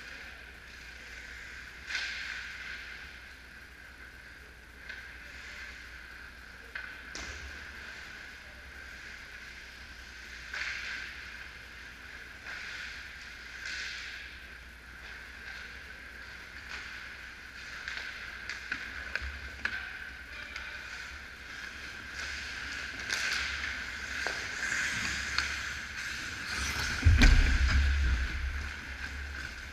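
Ice hockey play in an indoor rink heard from behind the net: scattered scrapes of skate blades on the ice and clacks of sticks and puck over a steady high hum, busier in the second half. Near the end, as players reach the crease, a heavy low thump is the loudest sound.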